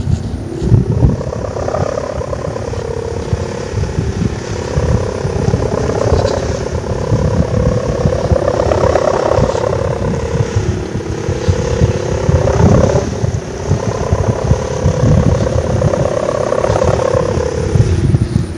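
Kite hummer (sendaren) on a large flying kite droning in the wind: a steady pitched hum with overtones that swells and wavers up and down in pitch every few seconds. Wind buffets the microphone underneath.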